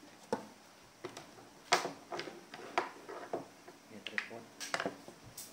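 Irregular sharp clicks and taps from small plastic accessories and packaging being handled, about a dozen in all, the loudest a little under two seconds in.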